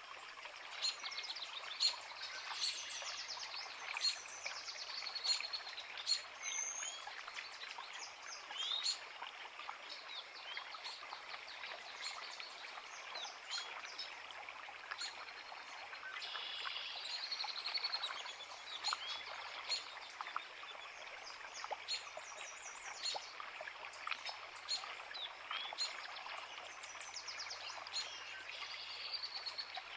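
Woodland birds singing over the steady rush of a small creek: many short chirps, rising notes and quick trills come and go above the even sound of the water.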